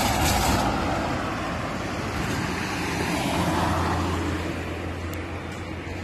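Road traffic: vehicles passing on the road, with a low engine drone that comes in about halfway through and holds steady.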